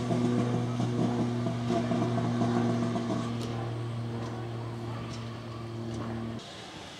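Diesel locomotive engine running at a steady idle, a low even hum that stops abruptly about six seconds in.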